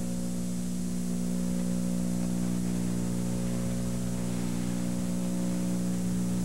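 Steady electrical hum under an even tape hiss from VHS playback, with no programme sound over it.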